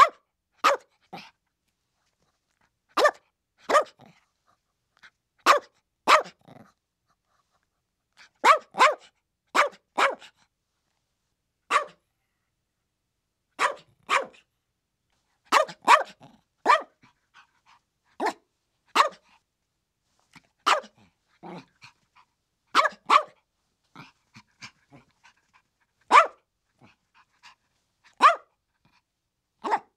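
Chihuahua barking in short, sharp yaps, singly or in quick pairs, every second or two with silence between. A few fainter yips come about three-quarters of the way through.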